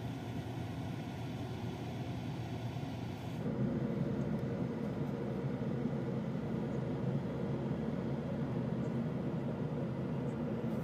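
Steady traffic noise, then, after a cut about three seconds in, the louder low rumble of a car's engine and tyres heard from inside the cabin while driving on a highway.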